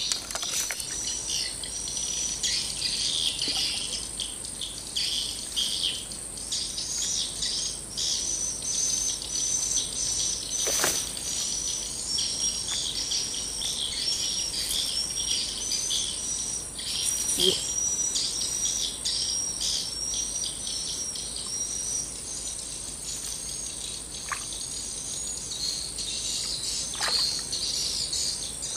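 Insect and bird chorus: a steady high insect drone with rapid, high-pitched chirping calls running throughout, and a few soft clicks around the middle.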